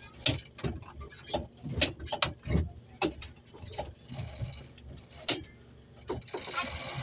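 Metal levers of an old aircraft's throttle quadrant being pushed and pulled by hand, giving a run of irregular clicks, knocks and rattles. There is a louder, longer rustling noise near the end.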